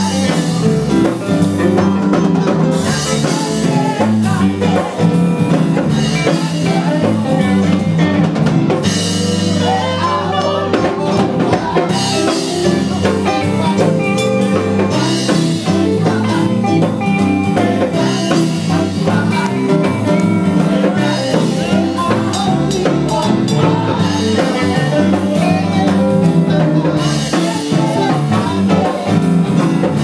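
Live praise-and-worship band playing a steady, loud song: drum kit, electric guitars, bass and keyboard, with singers on microphones.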